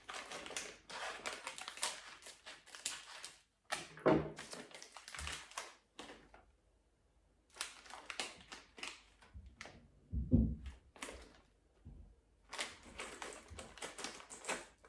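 Crinkling and rustling of a snack packet being handled and opened, in several bursts with a short pause near the middle, and a dull thump a little past the middle.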